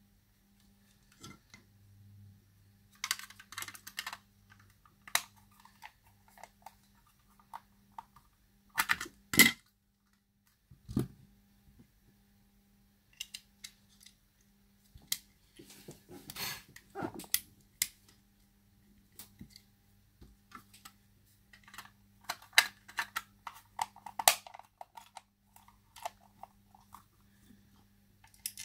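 Handling and reassembly of a Sonoff S20 smart plug's white plastic casing: scattered clicks, taps and knocks of plastic parts being fitted together, the loudest a sharp knock about a third of the way in. A faint steady hum sits underneath.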